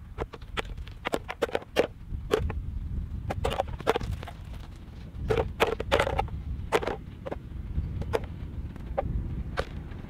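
Hollow plastic pigeon decoys tossed onto a pile, landing on one another with irregular sharp clacks and knocks, over a steady low rumble.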